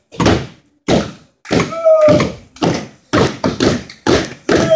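Sharp thuds and slaps in a quick, uneven rhythm that echo in the room, with a drawn-out shout about two seconds in and again near the end.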